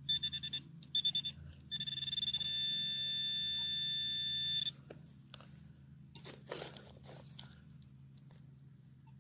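Handheld metal-detecting pinpointer buzzing as it is worked through the soil of a dug hole: two short buzzes, then a steady high buzz for nearly three seconds as it sits on the buried target. After it stops, soft scrapes and crunches of dirt being worked by hand.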